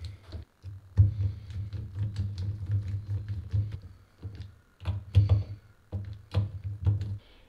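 Screwdriver tightening the small cap screws of scope rings: irregular light clicks and scrapes of the bit in the screw heads, with low handling knocks and rubbing from working the tool.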